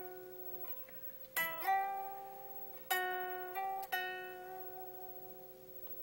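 Unplugged Gibson Les Paul electric guitar playing single notes on the G string: three plucks, each followed by a short slide of a fret up or back, each note ringing and fading.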